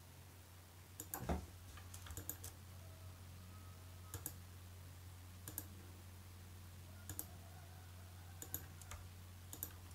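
Faint computer mouse clicks, single or in quick pairs every second or so, as anchor points are placed with a pen tool, over a low steady hum.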